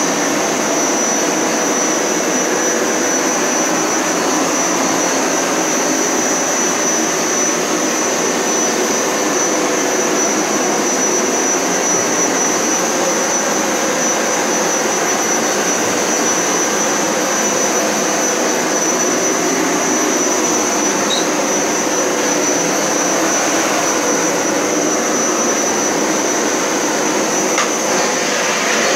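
Hoover Power Scrub Elite Pet upright carpet cleaner running steadily while cleaning a rug: a loud motor rush with a thin, high, steady whine on top.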